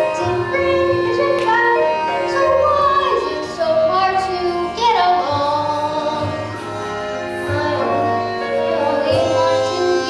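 A child singing a stage-musical song with instrumental accompaniment, with long held notes and sliding pitches over a steady bass line.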